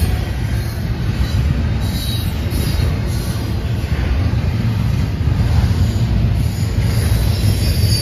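Double-stack intermodal freight cars rolling past close by: a steady, loud low rumble of steel wheels on rail, with faint high wheel squeals now and then.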